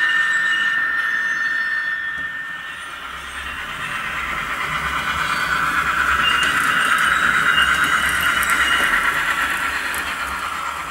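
Life-Like Proto 2000 GP30 model diesel locomotive running under its ESU sound decoder, the locomotive sound played through the small onboard speaker. It carries a high, steady whine that fades a couple of seconds in and grows louder again as the model comes back around.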